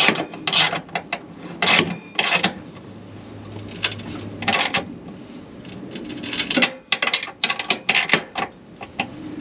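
Hand ratchet wrench clicking in short bursts of strokes, with some metal scraping, as a 3/4-inch nut on a hitch mounting bolt is tightened.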